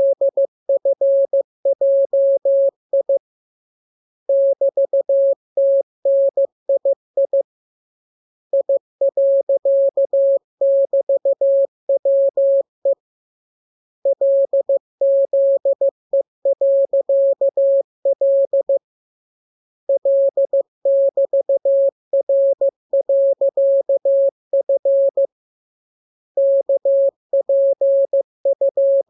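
Morse code (CW) practice tone: a single steady mid-pitched beep keyed on and off in dots and dashes, sending groups of letters for receiving practice. The keying comes in runs of a few seconds with pauses of about a second between them.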